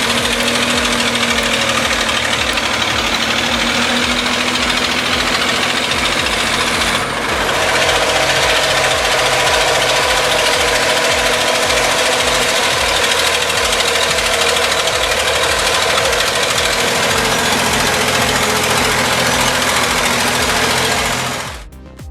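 Caterpillar D7F bulldozer's diesel engine running hard under load, a loud, steady mechanical clatter that shifts slightly about seven seconds in and cuts off near the end.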